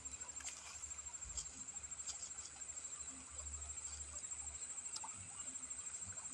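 Faint rustling and a few light ticks as dry grass and straw are gathered by hand, over a steady thin high whine.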